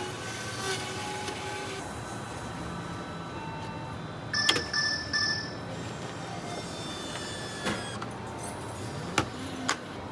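Short electronic beep from a vending machine's control panel about halfway through, followed by a few sharp clicks, over a steady background hum.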